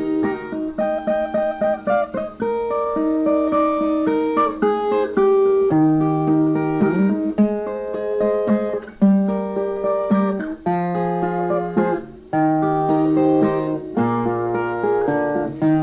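Instrumental break of a romantic song: a plucked guitar plays a melody over a bass line, with no singing.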